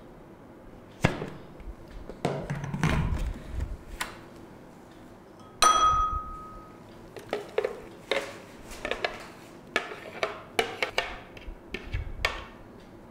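Knocks and clatter as the food processor's blender jar is handled and lifted off its base, with one loud ringing clink about six seconds in. Then a run of quick taps and scrapes as a spoon works the spinach purée out of the jar into a glass bowl.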